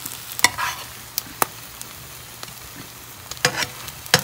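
A spatula scraping and tapping against a nonstick frying pan and a plate as slices of cooked omelette are lifted out, a handful of sharp clicks over a faint steady sizzle.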